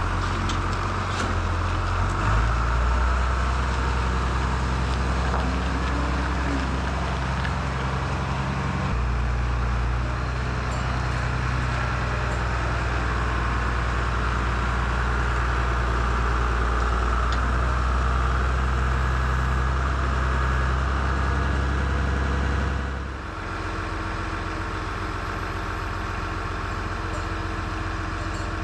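International 686 tractor engine running steadily. Its note shifts about 2 and 9 seconds in, and the sound drops noticeably about 23 seconds in.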